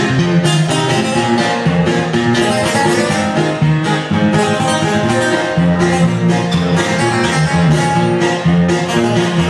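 Live band playing an instrumental passage, led by a plucked guitar-type string instrument over steady held notes.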